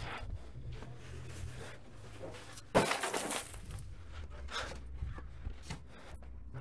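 A single sharp knock about three seconds in, over a faint low steady hum.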